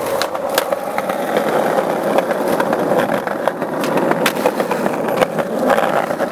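Skateboard wheels rolling on concrete, a steady rumble, with several sharp clacks of the board striking the ground and the ledge.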